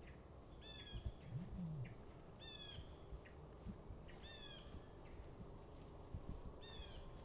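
A bird calling repeatedly in quiet woods: four short calls, each falling in pitch, spaced about two seconds apart, with fainter short chips between them and a few soft low thumps.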